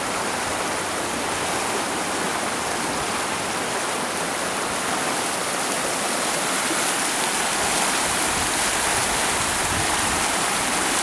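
Fast-flowing Cowlitz River water rushing steadily, the river running high and fast with snowmelt runoff from Mount Rainier.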